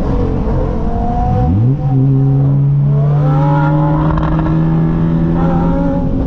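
9th-gen Honda Civic Si's 2.4-litre four-cylinder running through a Magnaflow midpipe and Invidia N1 exhaust, heard from inside the cabin. The exhaust note sweeps quickly up in pitch about a second and a half in, then holds a steady, loud drone.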